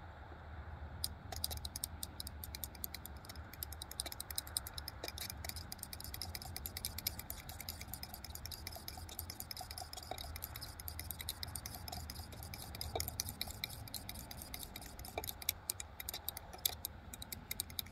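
A utensil stirring thin instant mashed potatoes in a steel camp cup, with rapid clicking and scraping against the cup that starts about a second in and keeps on.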